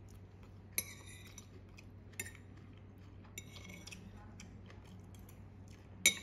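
A metal fork clinking and scraping against a plate. There is a sharp ringing clink about a second in, another just after two seconds, a brief ringing scrape in the middle, and the loudest clink near the end.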